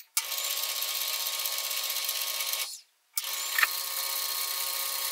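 Rivett precision lathe running under power in two runs of about two and a half seconds each, with a short pause between, as it takes single-point threading passes on a small mild steel part. Each run cuts off sharply.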